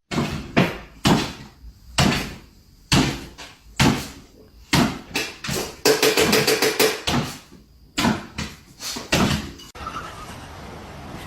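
A string of irregular knocks and thumps, roughly one or two a second, with a short rapid pulsing, pitched sound about six seconds in.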